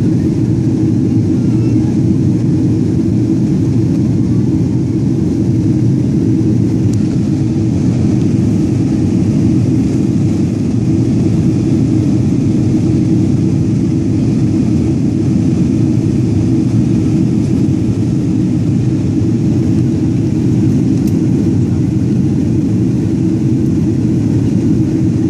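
Steady cabin noise of a jet airliner in flight, heard from inside at a window seat: the even, deep drone of the engines and the air rushing past the fuselage, unchanging throughout.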